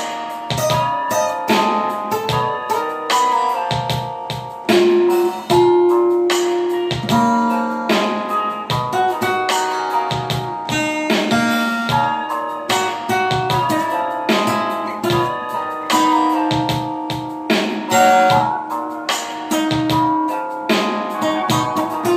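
Acoustic guitar played by hand, a steady run of plucked notes and chords that ring on between attacks.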